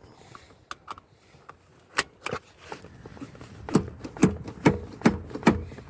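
Driver's seat belt of a 2009 Toyota Prius being worked to test it: a few scattered clicks, then about halfway through a run of five sharp, evenly spaced clicks, roughly two to three a second.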